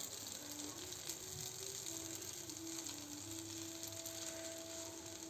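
Stir-fried Schezwan noodles sizzling steadily in a hot pan, with a faint tune playing underneath.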